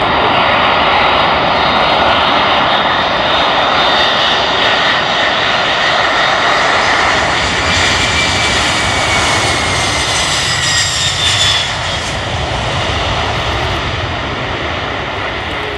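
Four Pratt & Whitney F117 turbofan engines of a C-17 Globemaster III, loud, as the transport jet lands. A whine in the engine noise glides down in pitch about halfway through as the aircraft passes. The noise then eases into a lower rumble for the last few seconds while it rolls out on the runway.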